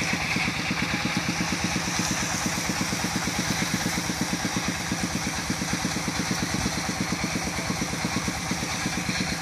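A small engine running steadily at idle, with an even, rapid chugging pulse that does not change.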